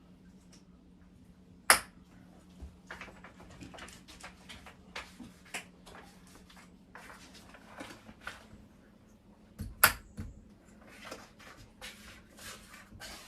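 Scattered light clicks, taps and scrapes of tiles and tools being handled on a countertop during tiling, with two sharp clacks, one about two seconds in and one near ten seconds in. A faint steady hum lies under it until about nine and a half seconds in.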